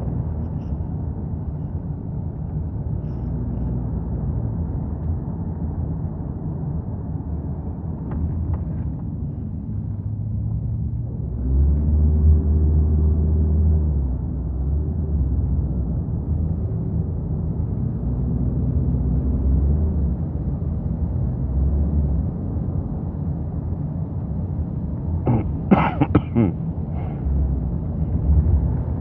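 Steady low rumble that grows louder for a few seconds a little under halfway, with a few short sharp sounds near the end.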